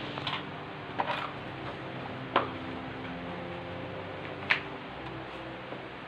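Four sharp clicks and knocks, the loudest in the middle, from hard objects or tools being handled, over a faint steady hum.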